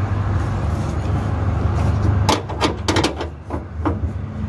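A steady low hum, then from a little past halfway a quick run of about six sharp metallic clicks and clinks as a wrench works on bolts under a car's body.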